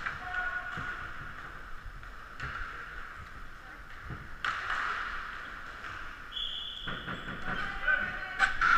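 Inline hockey game sounds: skates rolling, stick and puck clacks, and distant players' calls. A short, high, steady tone sounds about six seconds in, and voices rise near the end.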